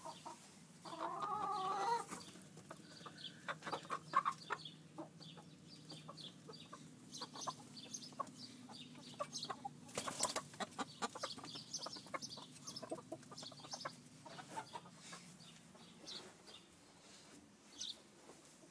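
Chickens clucking close by. About a second in, one bird gives a drawn-out call lasting about a second, followed by many short, scattered clucks.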